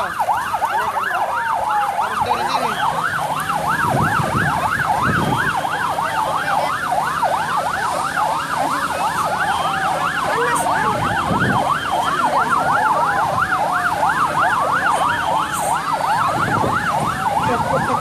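Several emergency vehicle sirens sounding at once, rapid up-and-down yelps overlapping, with slower falling wails among them.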